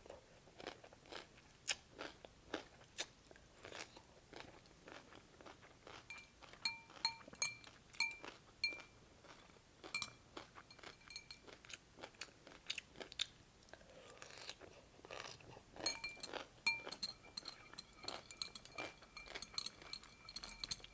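Close-up crunching and chewing of cucumber slices from cold cucumber soup: many sharp, irregular crunches. Short high ringing tones come in between at times.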